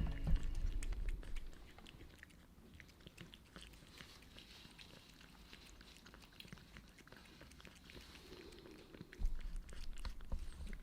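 A cat eating wet food from a can, chewing with many small, irregular wet clicks. A low rumble from handling comes in the first second or so and again about nine seconds in.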